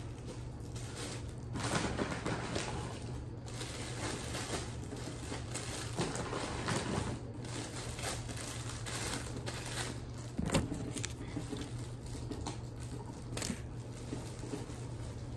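Crinkling and rustling of candy wrappers and bags being handled, with irregular small clicks and a sharper knock about ten and a half seconds in, over a steady low hum.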